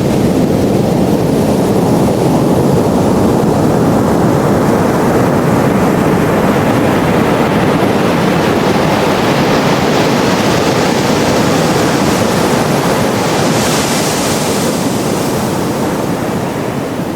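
Sea waves washing on the shore in a steady, unbroken rush of surf, with a brief brighter hiss near the end.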